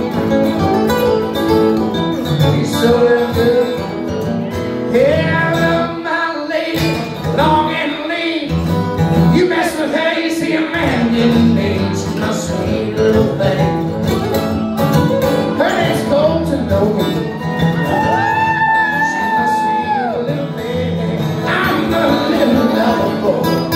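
Two acoustic guitars strummed together while a man sings, an acoustic country duo performing live; the singer holds one long note about three quarters of the way through.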